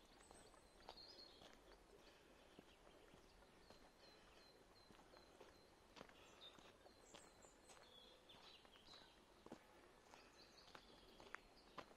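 Quiet woodland birdsong: small birds singing and calling, one repeating a short high chirp about three times a second for a few seconds, with soft footsteps of someone walking along the trail.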